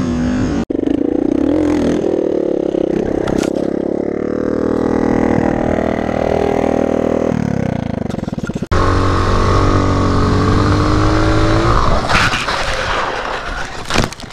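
Dirt bike engines running and revving, heard through helmet cameras in several spliced clips, with the sound changing abruptly about a second in and again around nine seconds. Near the end come a few loud sudden knocks and scrapes as a bike crashes.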